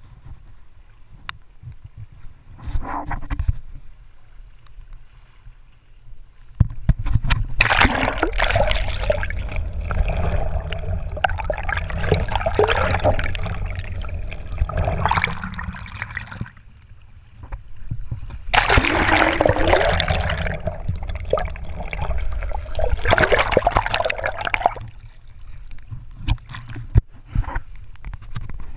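River water gurgling and splashing around a GoPro camera dipped into a shallow, fast-flowing stream. There is a faint trickle at first, then two long stretches of loud water noise while the camera is under the surface, with a short lull between them. It turns quieter again near the end.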